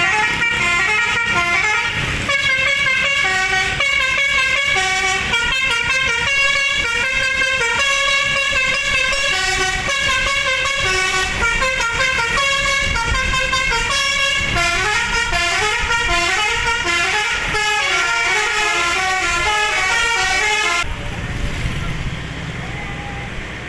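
Telolet horn of a Sudiro Tungga Jaya bus playing a long tune of quick multi-tone notes that jump up and down. It stops suddenly about 21 seconds in, leaving the bus engine running.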